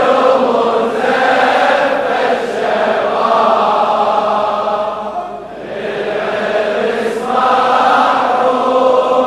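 Men's voices chanting a Shia Muharram lament (latmiya) together in long, drawn-out sung notes, dipping briefly about five and a half seconds in before rising again.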